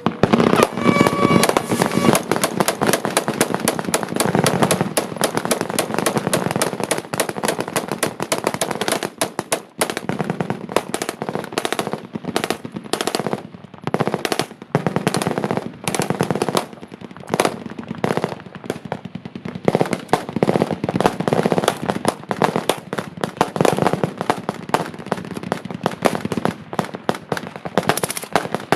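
Several machine guns firing at once in long, overlapping bursts of rapid automatic fire, with only brief pauses.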